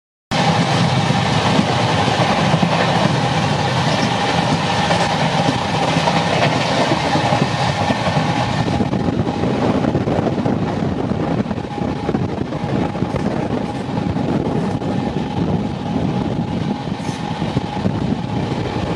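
Uday Express double-decker train running at speed, heard from an open coach doorway: a continuous rumble of wheels on rail mixed with rushing air, with a steady whine running through it. It is louder over the first half while the train crosses a stone arch bridge, then eases off somewhat.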